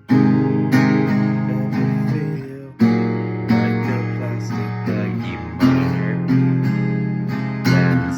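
Acoustic guitar with a capo on the first fret, strummed chords ringing, a strum about every two-thirds of a second, changing chord about three seconds in and again past five and a half seconds.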